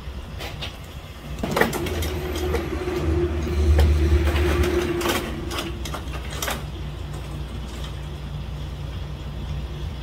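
A low, steady engine rumble runs throughout. Over it come metal clanks and rattles, with a held squeak lasting a few seconds, as a wheeled steel stair ladder is rolled up to the back of a trailer.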